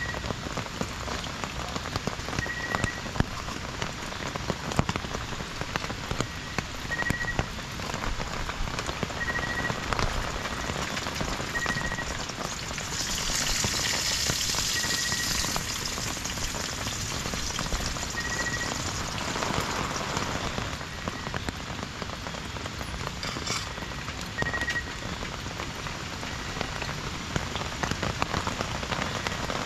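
Heavy rain falling on a tent's fly, heard from inside the tent as a dense, steady patter. A short high chirp recurs every few seconds, and the rain swells for a few seconds near the middle.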